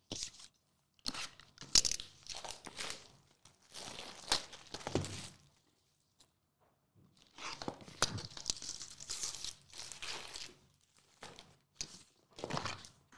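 Plastic shrink-wrap torn and crumpled off a Topps Chrome trading-card box, then the box opened and its packs handled: crinkling and tearing in bursts, with two short pauses.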